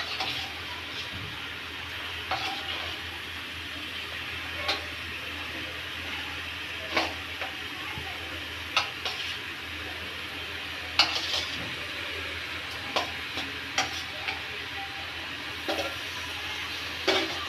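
Chicken frying in oil and masala in a pan, with a steady sizzle. A spoon stirring and scraping knocks against the pan every second or two.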